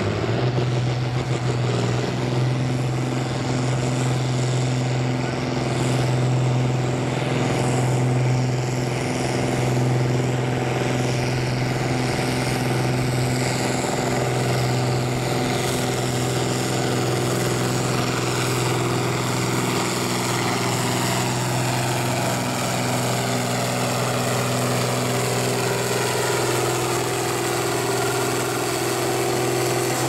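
John Deere 4430's turbocharged six-cylinder diesel engine at full throttle under heavy load, pulling a weight-transfer sled. The engine note holds steady throughout.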